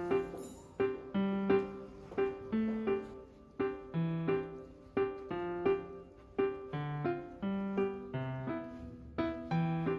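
Background piano music: a light, even melody over a bass line, notes struck about twice a second.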